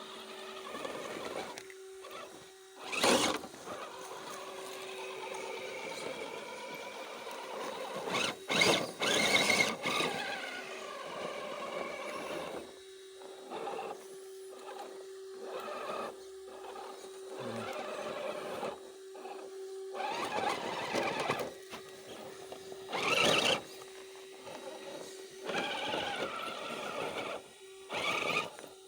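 An RC rock crawler's electric motor and drivetrain whining in a steady, even tone that stops and starts as the throttle is worked. Several short, loud scrapes and knocks break in, about three seconds in, twice between eight and ten seconds, around twenty-three seconds and near the end.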